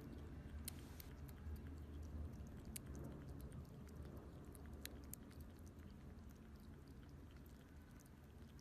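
Faint, scattered sharp clicks over a low steady hum.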